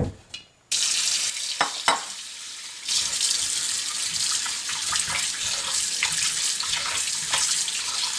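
Kitchen tap turned on about a second in and running into a sink as cut chicken pieces are rinsed under it, with a couple of sharp knocks just after it comes on.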